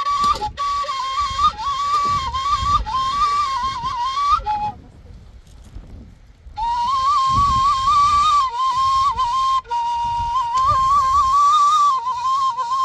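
A single flute playing a slow, ornamented melody around one high note, in two phrases with a pause of about two seconds between them.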